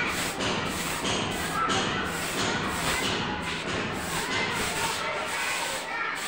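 Short hand broom sweeping dust and loose plaster debris across a concrete floor in quick, repeated scratchy strokes.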